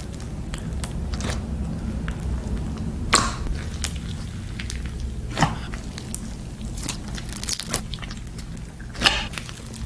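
Hands squishing and poking thick slime: crackling with scattered sharp pops and clicks, the loudest about three seconds in, again at five and a half, and near nine seconds.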